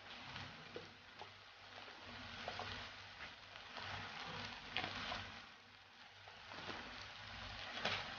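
Fried rice sizzling faintly in a hot pan, with scattered light clicks and taps about once a second.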